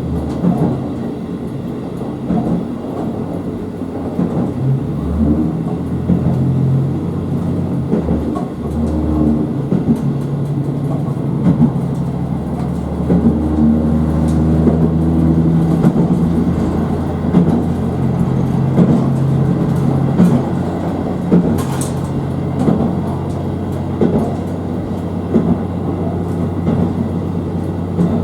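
KiHa 54 series diesel railcar running along the line: the engine's low drone shifts in pitch and strength several times under the wheels' rumble, with scattered clicks from the rail joints.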